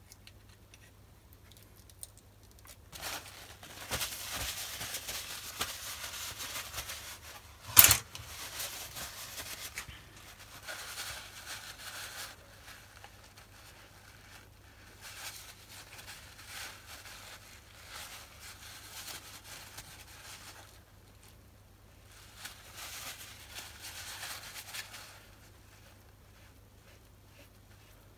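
Paper towel crinkling and rubbing against metal in intermittent stretches as a dividing head is wiped by hand, with one sharp knock about eight seconds in.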